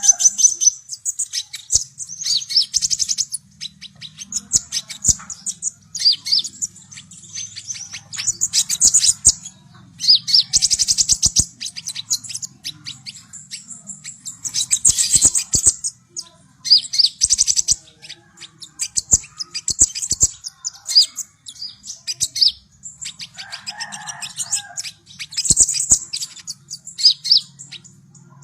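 A kolibri ninja (konin) sunbird singing in full voice: phrase after phrase of rapid, very high chattering trills, each lasting a second or two with short pauses between. A faint low hum runs underneath.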